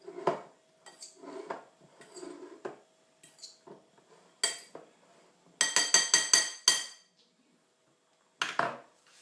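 A metal utensil scraping and knocking against a dish as chicken and rice are mixed, then about six quick ringing taps on metal a little after halfway, and one last knock near the end.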